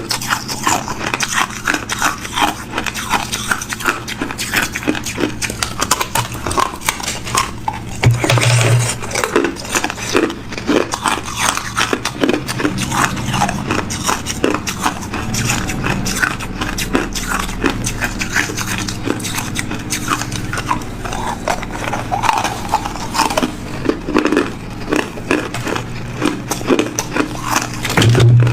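Hard ice being bitten and chewed, a dense run of sharp cracks and crunches between the teeth, with a louder spell about eight seconds in.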